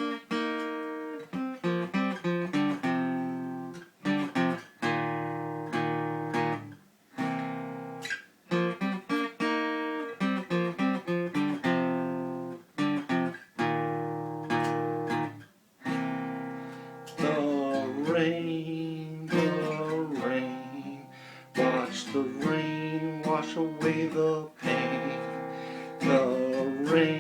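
Acoustic guitar playing a mellow blues-rock intro, chords strummed and picked and left to ring, with short breaks about 4, 7 and 15 seconds in.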